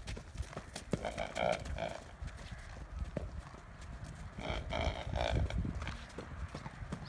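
A liver chestnut cob horse making two short, low vocal sounds, about a second in and again about four and a half seconds in, with scattered light clicks and knocks between them.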